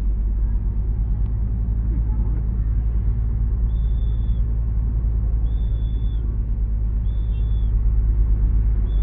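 Intercity bus engine droning steadily while driving, heard from inside the driver's cab. From a few seconds in, a short high beep repeats about every one and a half to two seconds.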